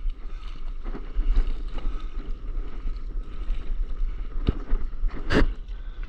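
Wind buffeting the microphone over water sloshing around a stand-up paddleboard as it is paddled. There is a sharp click about four and a half seconds in and a louder short hit just after.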